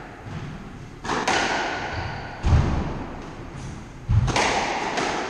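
Squash rally: the ball is struck with rackets and hits the walls, making sharp cracks and heavier thuds about every one to two seconds, each echoing around the court.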